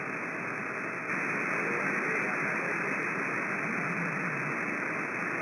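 CB radio receiver hissing with open static on an idle channel, a steady, thin, muffled hiss that steps up slightly about a second in.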